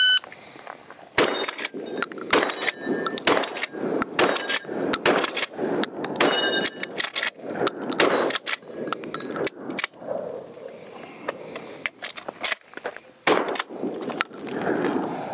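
Shot-timer beep, then a string of shots from a Remington 870 pump-action shotgun, the pump racked between shots and struck steel plates ringing after some of them. About ten seconds in the firing thins out during a combat reload, then picks up again.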